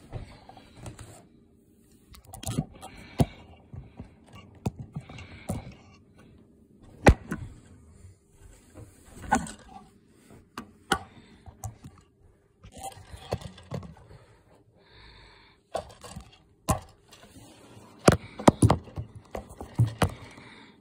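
Scattered knocks, clicks and scrapes of handling at a table: the phone being picked up and moved about and things being set down, with sharper knocks about 7 seconds in and a cluster near the end.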